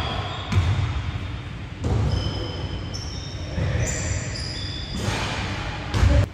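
A basketball bouncing several times on a hardwood court, each thud echoing in the large gym, with a few short high squeaks in the middle of the play.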